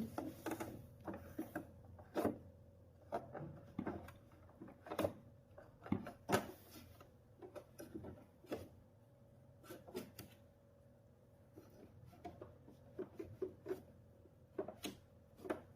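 Irregular light clicks and knocks from hands working on a plastic sewing machine while cleaning it, with a faint steady hum underneath.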